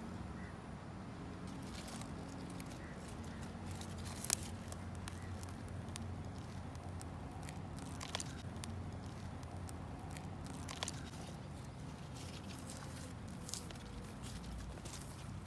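Fingers scraping and digging through gritty potting soil around a radish root, with a few sharp clicks, the loudest about four seconds in, over a steady low hum.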